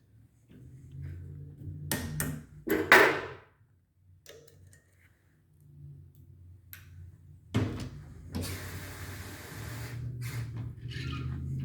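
Valve spring removal on an air-float cylinder head machine: sharp metal clicks and knocks from small hammer taps on the valves and the compressor tooling, over a steady low hum. A burst of air hisses about three seconds in, and a longer air hiss runs from about eight to ten seconds in.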